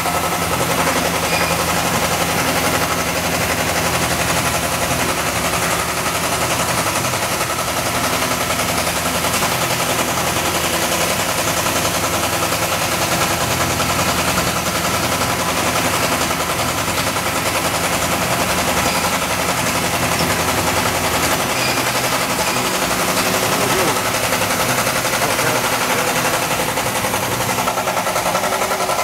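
Toyoda FA450 III CNC horizontal machining center running under power, its spindle turning a small tool with no cut being made: loud steady machine noise with a dense, fast rattle. The low hum underneath shifts about two-thirds of the way through.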